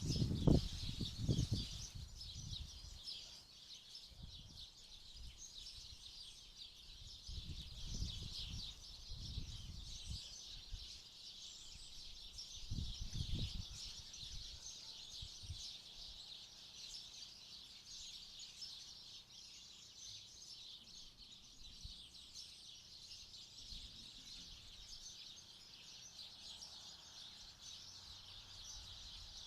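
A flock of small garden birds chirping continuously, many short overlapping high chirps. Low rumbling noise comes and goes underneath, heaviest in the first couple of seconds and again around 8 and 13 seconds in.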